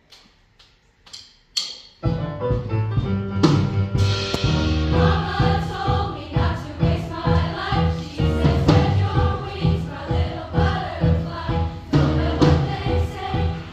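A few sharp clicks, each louder than the last, then about two seconds in a show choir starts singing over loud accompaniment with a strong bass and a steady beat.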